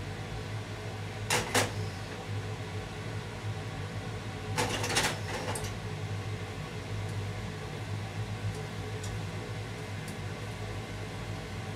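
Wooden chopsticks knocking against a nonstick frying pan while stirring omelette eggs: a couple of quick clicks about a second and a half in, then a short cluster of clatters around five seconds in, over a steady low hum.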